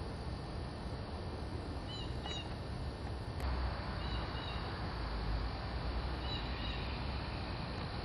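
A bird chirping short double notes three times, about two seconds apart, over a steady background hiss and low rumble.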